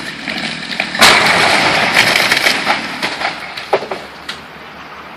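Falling tree crashing down: a sudden loud crash about a second in that trails off over about two seconds, followed by a couple of sharp cracks.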